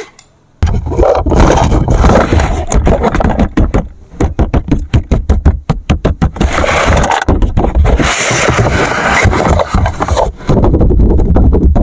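Loud scraping and rustling from objects being handled close to the microphone, in rapid irregular strokes over a low rumble.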